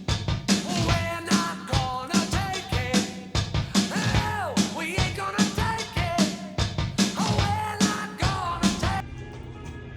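Background rock music with a steady drum beat and a sliding melody line, cutting off about nine seconds in.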